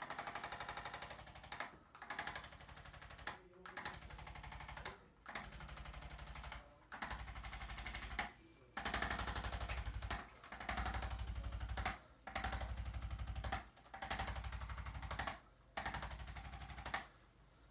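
Handheld electric percussion instrument pulsing rapidly, in about ten bursts of one to two seconds each with short pauses between.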